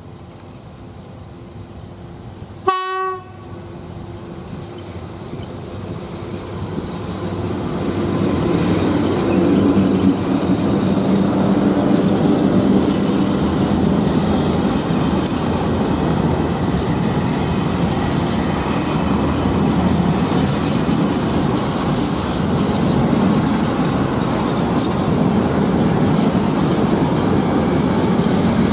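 Class ET22 electric locomotive sounds one short horn blast about three seconds in, then passes close by. Its train of open freight wagons follows with a steady rolling rumble and the clickety-clack of wheels on the rail, growing louder until about eight seconds in and then holding steady.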